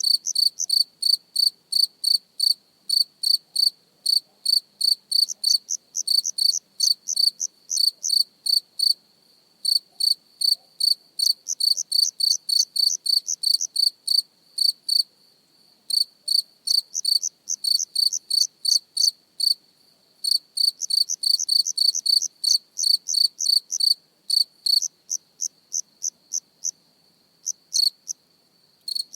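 A cricket chirping close up: short, high-pitched chirps repeated about three or four times a second, stopping for a second or two several times. A faint steady high trill fills the pauses.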